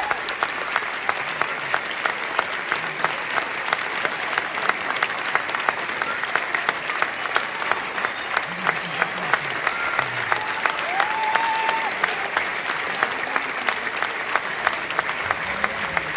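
Audience applause that settles into rhythmic clapping in unison, about two claps a second. A single high whistle rises and holds briefly about eleven seconds in.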